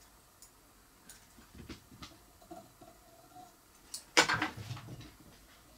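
Light clicks and clinks of metal fly-tying tools being handled, with one louder clatter about four seconds in that trails off over nearly a second.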